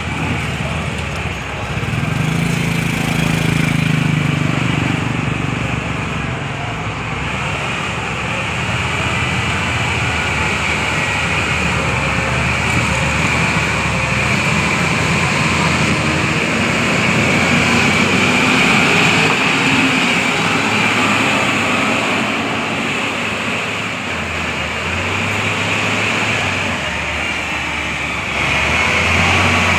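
Bulldozer's diesel engine running, its low note shifting up and down as the machine works.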